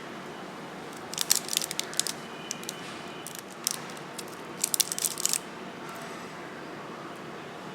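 Cough drop packaging being handled and opened: three bursts of sharp crinkling and clicking, the first about a second in and the last ending just past the middle, over a steady background hiss.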